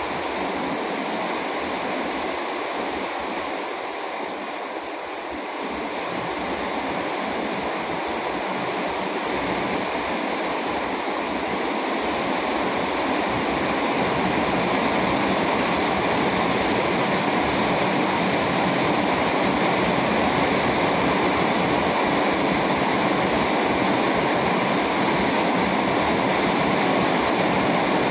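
Steady rushing noise, growing a little louder about ten seconds in and then holding.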